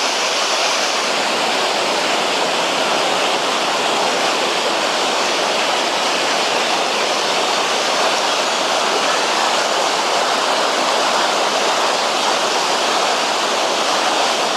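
River rapids rushing steadily: a constant, even noise of churning whitewater.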